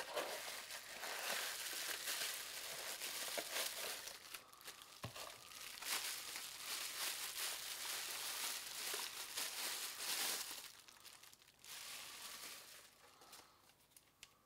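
Plastic bubble wrap crinkling and crackling as it is handled and pulled off a power supply and its cables, dying away near the end.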